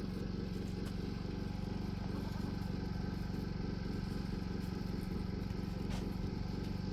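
An engine running steadily: a low, even hum with a fast regular pulse.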